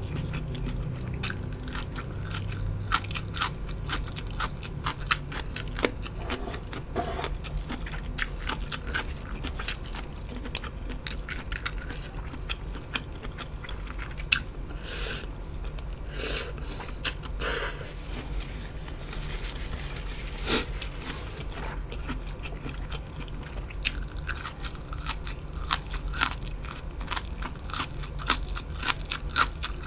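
Close-miked eating: a person biting and chewing crunchy food, with a steady stream of irregular crisp clicks and crunches.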